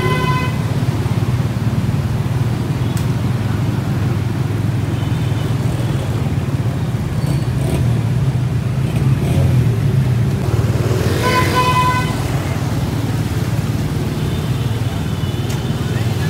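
Motorcycle engine running with a steady low drone. A vehicle horn sounds briefly at the start, again about eleven seconds in, and faintly near the end.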